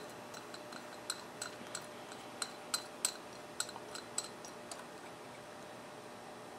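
Light, irregular clicks, about three a second, as the knurled aluminium adjusting screw of a homemade bubble level is turned by hand. They stop about five seconds in.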